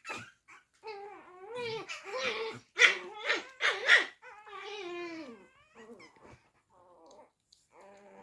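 Chihuahua making a string of whining, grumbling calls that bend up and down in pitch, the dog's 'talking back'. The calls are loudest about halfway through, then fade to short, faint ones.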